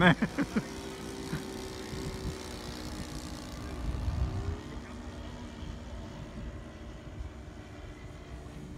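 Engines of radio-controlled model warbird planes droning overhead, a steady buzzing hum that drifts slightly in pitch as the planes move around the sky. A brief low rumble swells about four seconds in.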